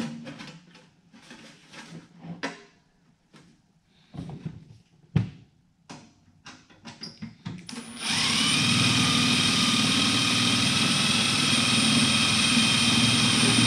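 Cordless drill driving a half-inch self-drilling screw into thin sheet metal. First come light knocks and clicks as the screw is set in place. About eight seconds in, the drill starts and runs steadily for nearly six seconds, its whine rising as it spins up, then stops.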